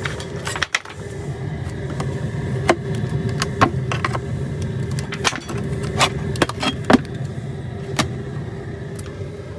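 A string of sharp metallic clicks and knocks, irregular and scattered, over a steady low rumble.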